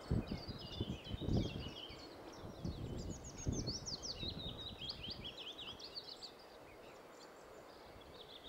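Songbirds singing: fast runs of high, quickly repeated chirping notes, busiest a little before halfway. Low buffeting thumps, the loudest sounds, run through the first half and die away.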